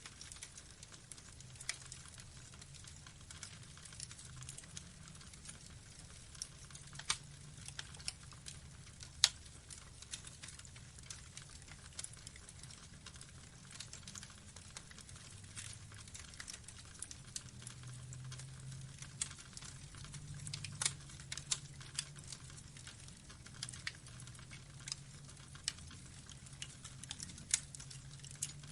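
Burning logs crackling: irregular sharp snaps and pops over a low, steady rumble, with one louder pop about nine seconds in.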